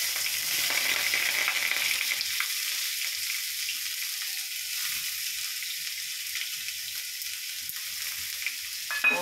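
Chopped onions sizzling in hot oil in a kadhai, just tipped in: a steady frying hiss that slowly eases off.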